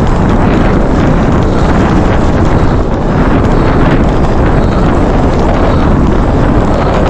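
Loud, steady wind buffeting on the microphone of a camera moving at speed, a dense rumble that covers everything else.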